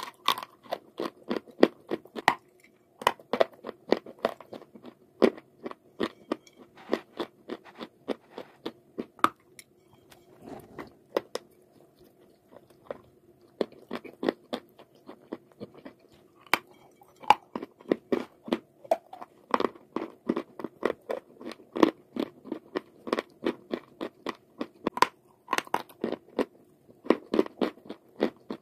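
Close-up crunching and chewing of a brittle white chalk-clay lump coated in creamy paste: crisp crunches several a second, easing off for a few seconds about ten seconds in, then picking up again.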